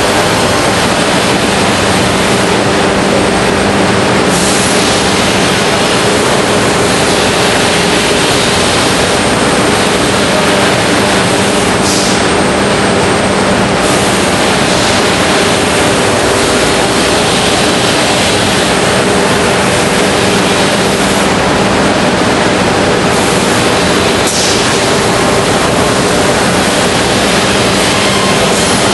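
Busellato CNC router running: a loud, steady rushing machine noise with a constant hum, broken by a few brief hisses.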